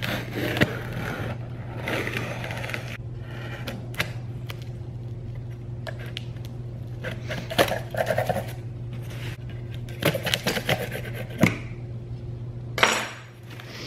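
A small knife slitting packing tape on a cardboard shipping box, with irregular scraping, ripping and crinkling of tape and cardboard and scattered sharp clicks. There are a few louder rips in the second half, over a steady low hum.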